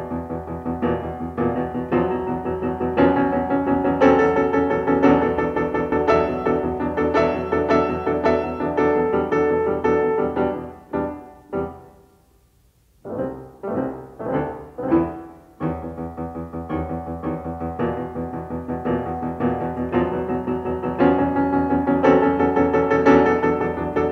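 Instrumental music: a dense, continuous run of notes that fades and breaks off almost to silence about halfway through. It picks up again with a few separate struck notes before the full run resumes.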